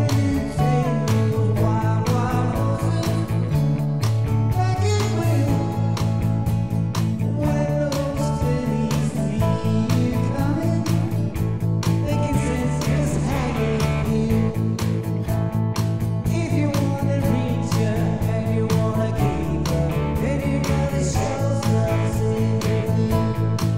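Rock song with guitar and a steady drum beat.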